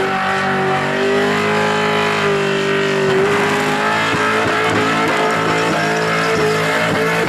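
A burnout car's engine is held at high revs with the tyres spinning. The engine note is steady at first, then dips about three seconds in and bounces unevenly as the revs are worked up and down.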